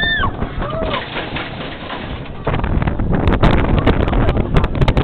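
A rider's short rising-and-falling whoops at the start, then, about two and a half seconds in, a louder rush of wind and rumble from the flying roller coaster ride, with sharp clicks and rattles.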